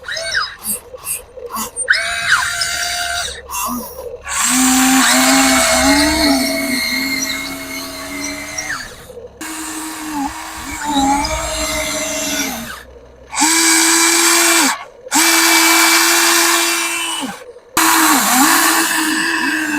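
Huina 1594 RC excavator's electric motors whining in long runs, the pitch dipping and wavering as they strain, with several brief stops and restarts.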